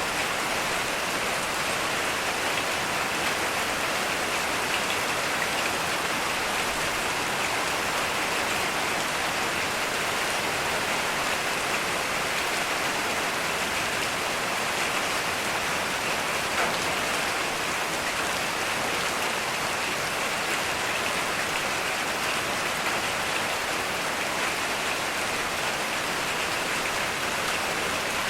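Heavy, steady rain falling, an even hiss of drops with no thunder heard.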